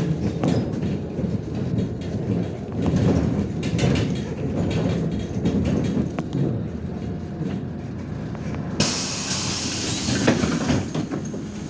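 Inside a MAZ-105 articulated city bus under way: engine and road rumble with rattling of the body and fittings. About three-quarters of the way through, a sudden loud hiss of released air starts and lasts about three seconds, as the bus comes to a stop and its pneumatic brakes or doors let out air.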